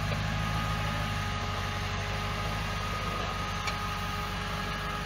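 Off-road Jeep rock crawler's engine idling steadily, a low even hum, as the vehicle eases back down off a steep rock slab.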